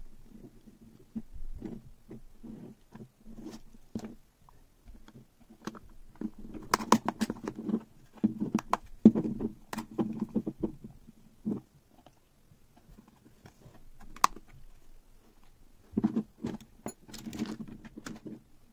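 Hands handling a 3D-printed plastic case with a circuit board inside: scattered rubbing, scraping and small plastic clicks, busiest in the middle and again near the end as the lid is fitted on.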